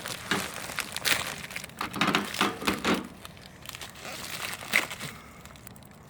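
Packaging crinkling and rustling as hands open a box and pull out a boxed fire alarm horn. The rustling is busiest over the first three seconds, then quieter, with one sharp click about five seconds in.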